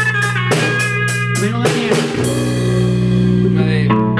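Electric guitar and electric bass playing together at rehearsal volume: chords struck in a steady rhythm over a held bass for about two seconds, then left ringing as a sustained chord, which changes just before the end.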